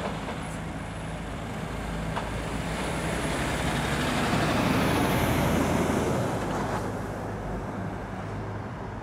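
Heavy goods lorry driving past, its diesel engine running under a wash of tyre and road noise that swells to a peak about halfway through and then fades as it moves away.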